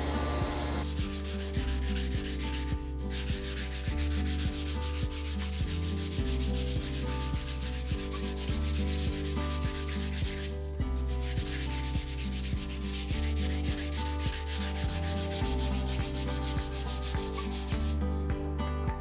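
Sandpaper held against cherry wood spinning on a lathe: a steady rubbing hiss with a fast even flutter, breaking off briefly twice.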